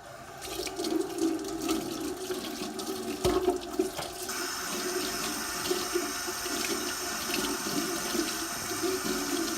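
Water running steadily from a tap, the flow getting stronger about four seconds in.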